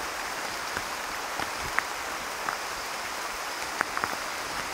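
Steady hiss of rain in the rainforest, with a few light clicks and rustles as a nylon cord is pulled through a tarp's grommet and tied off.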